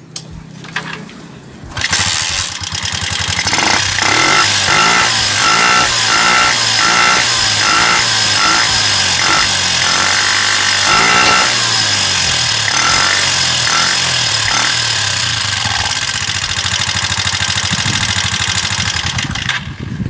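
Honda TMX Alpha's single-cylinder four-stroke motorcycle engine starting about two seconds in, then running loudly and being revved up and down several times in the first half.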